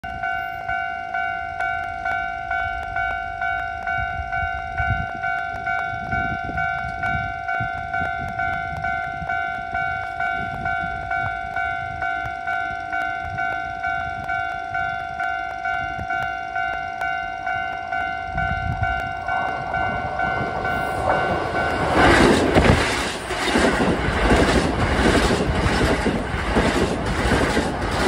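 Level-crossing warning bell ringing in a steady repeating ding, just under two a second. The rumble of an approaching Keisei 3400 series electric train grows from about two-thirds of the way in. The train then passes at speed, loud enough to drown the bell, its wheels clattering rhythmically over the rail joints.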